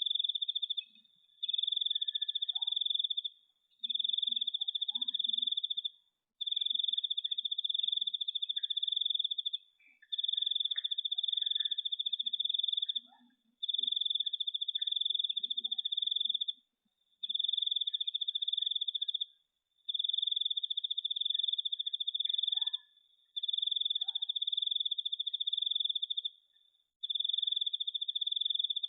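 An insect, cricket-like, trilling on one high pitch in repeated bursts of about two to three seconds, each separated by a brief pause.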